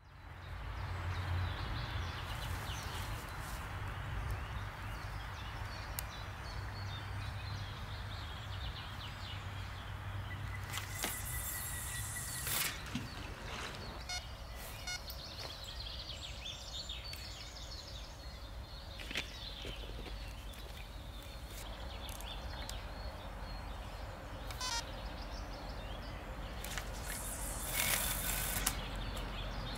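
Steady outdoor background noise by the river, with occasional faint bird chirps, scattered clicks and two short louder rustles, about eleven seconds in and near the end.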